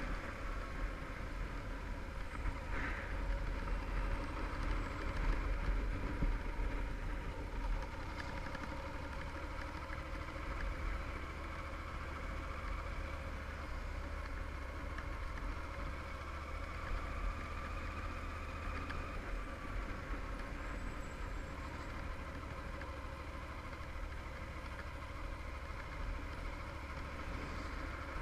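Yamaha TDM850's parallel-twin engine running at low road speed, its note rising and falling gently, over a steady low rumble of road and wind noise.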